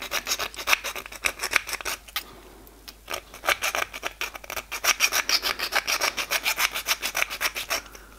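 Half-round file rasping back and forth inside the bore of a small drilled metal cylinder, in quick strokes about six a second, cleaning up its rough inside. The filing pauses for about a second two seconds in, then resumes and stops shortly before the end.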